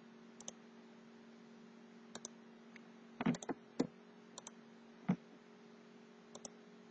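Computer mouse clicks, several in quick double-click pairs, with a few firmer knocks, over a steady low electrical hum.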